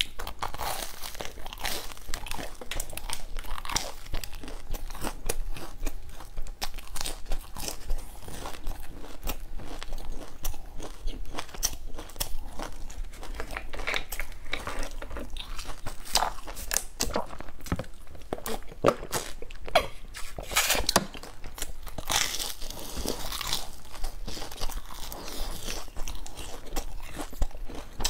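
Close-up crunching of a crusty, flaky pastry bun being bitten and chewed, with dense irregular crackles of the crisp crust breaking between the teeth.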